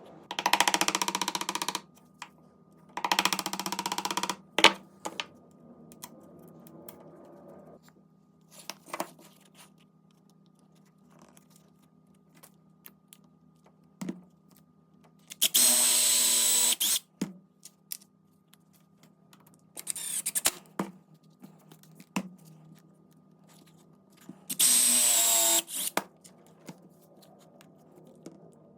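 A handheld power tool, drill-like, runs in several short bursts of one to two seconds, some with a whining motor tone. Scattered clicks and knocks from handling the tool and workpiece fall in between.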